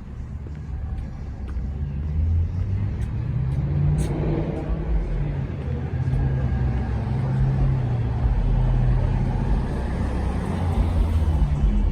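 Car engine and road noise: a low rumble with the engine note shifting up and down.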